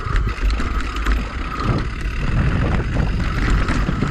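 Mountain bike riding fast down a dirt trail, heard from a camera on the bike: wind buffeting the microphone, with tyre rumble and the rattle of the bike over bumps.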